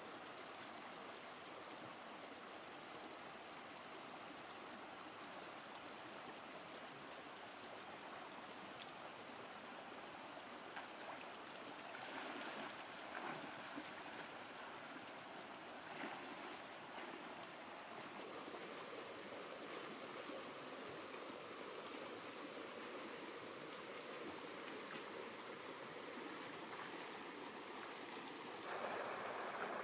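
Shallow rocky stream running steadily over stones, with a few brief splashes from someone wading in it partway through.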